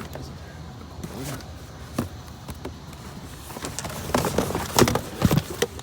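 Objects being handled and shifted in a pile of junk: a single knock, then a run of sharp knocks and clatters in the last two seconds.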